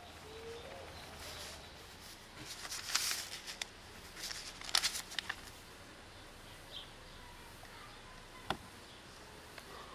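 Paper rustling in short bursts about three and five seconds in, with a single sharp click later. Faint bird chirps sound over a quiet outdoor background.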